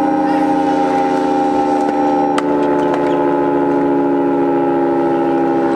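Federal Signal 3T22A outdoor warning siren sounding the attack signal, a loud chord of several tones whose pitch holds nearly steady. A separate thin steady tone stops with a click about two and a half seconds in.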